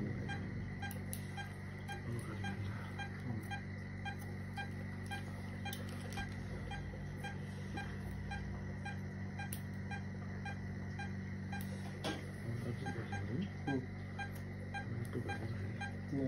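Veterinary patient monitor beeping in time with the anaesthetised dog's pulse, short even beeps about twice a second, over a steady low equipment hum.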